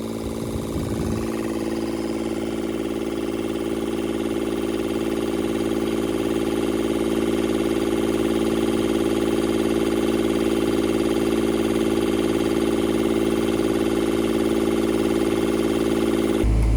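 Kubota D722 three-cylinder diesel engine of a Denyo TLW-300 engine welder running steadily at a constant speed, freshly fitted with new pistons. Just before the end a louder, deeper rumble comes in.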